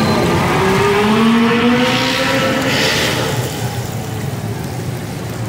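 A motor vehicle's engine revving as it passes close by, its pitch rising over the first three seconds and then fading. Underneath is a steady sizzle of beef patties shallow-frying in hot oil in a wide flat pan.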